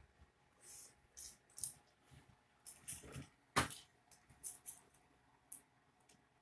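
Irregular short rustles and clicks of small plastic toys being handled by hand, with one sharper click about three and a half seconds in.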